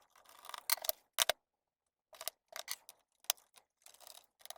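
Irregular metallic clicks and light rattles of small screws and a screwdriver being handled against a laptop's plastic bottom casing during disassembly.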